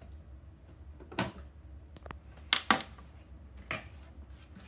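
Cardboard box being opened and handled: four short, sharp knocks and scrapes, the loudest a quick pair about two and a half seconds in.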